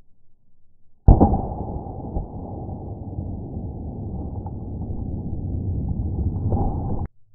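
A 9mm pistol shot and the hit on water-filled plastic bottles, played back in slow motion: a sudden onset about a second in, then a deep, drawn-out rumble lasting about six seconds that cuts off suddenly.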